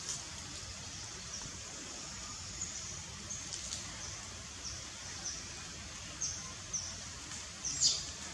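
Small birds chirping: short, high, falling chirps every second or so, with a sharper, louder one near the end, over a steady outdoor hiss and low rumble.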